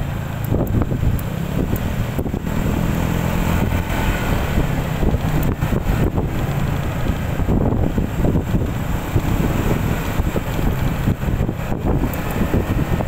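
Wind buffeting the microphone of a motor scooter riding at about 35 km/h, with the scooter's engine humming steadily underneath.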